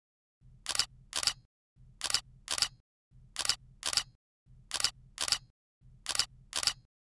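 Camera shutter sound effect: pairs of sharp shutter clicks repeating about every second and a third, five pairs in all, each pair with a low whir under it.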